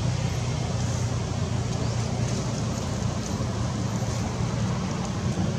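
Steady low rumble and hiss of outdoor background noise, with no distinct sound standing out.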